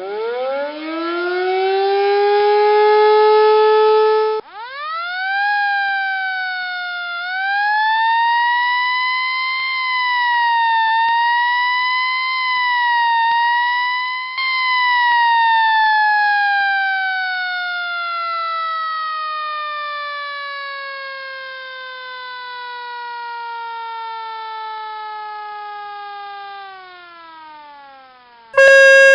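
An air-raid style siren winds up in pitch and cuts off abruptly after about four seconds. A siren then winds up again, wails with a slow rise and fall for about ten seconds, and winds down in a long falling glide to a low pitch near the end.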